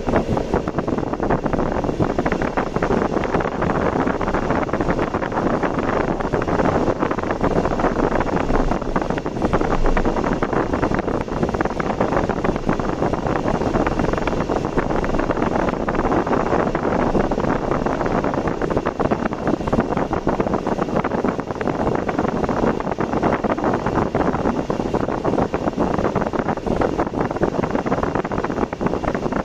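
Steady road and wind noise of a car driving along a road, an even rushing with no breaks.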